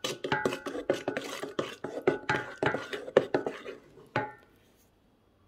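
Slotted wooden spoon knocking and scraping against a stainless-steel mixing bowl in quick, uneven strokes as flour is stirred into a wet batter, each knock leaving a slight metallic ring. The stirring stops about three seconds in, with one last knock a second later.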